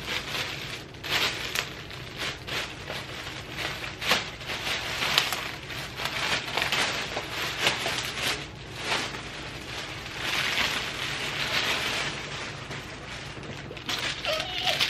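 Clear plastic packaging crinkling and rustling in irregular crackles as a handbag is pulled out of its plastic bag by hand, with one sharper tap about four seconds in.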